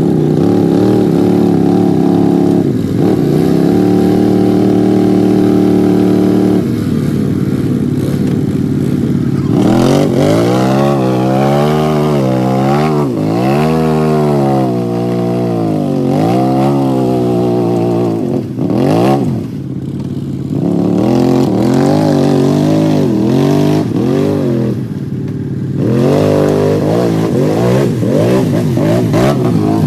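Can-Am Outlander 650 ATV engine revving hard and repeatedly as its tyres spin and churn through a deep mud pit. The engine is held steady at high revs at first, then rises and falls over and over from about a third of the way in.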